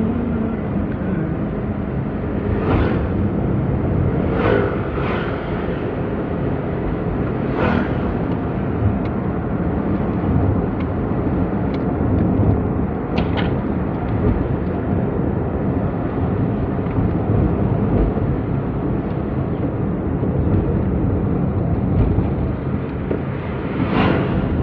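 Steady engine and road rumble heard from inside a moving car, with a few short knocks scattered through it.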